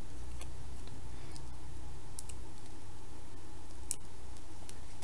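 A few faint, scattered clicks and light paper crackles from fingers handling small cardstock pieces and sticking on foam adhesive dots (Stampin' Up! Dimensionals), over a steady low hum.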